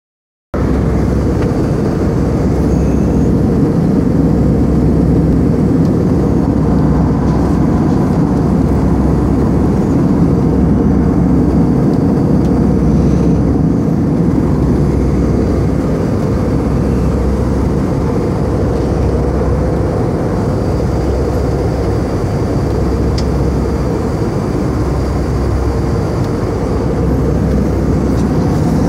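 Steady cabin noise of a jet airliner in cruise: a deep rumble from the engines and the airflow, heard from inside the cabin, with a slow, regular throb low down. It starts about half a second in.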